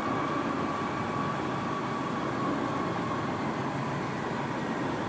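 Steady, even running noise of an electric-drive haul truck's cab, with a faint high tone that fades out in the first second or two.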